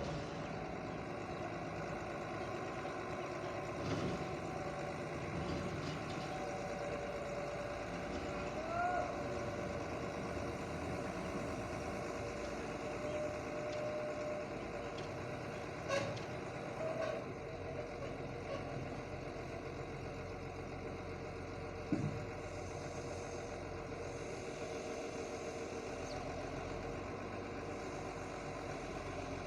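Heavy machinery engine running steadily, with a few sharp knocks now and then.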